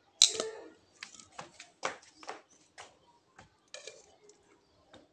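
Handling noise: a sharp knock about a quarter second in, then a run of irregular short clicks and rustles.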